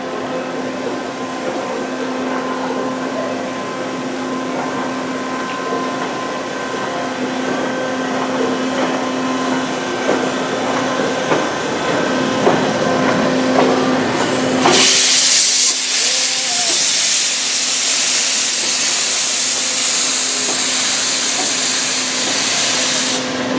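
D51 steam locomotive hissing steam: a steady hum at first, then a loud hiss that starts suddenly about fifteen seconds in and runs on steadily for about eight seconds.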